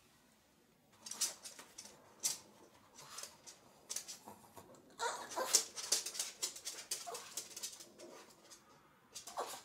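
A dog whimpering and whining, a string of short, sharp sounds starting about a second in, loudest about halfway through and again near the end.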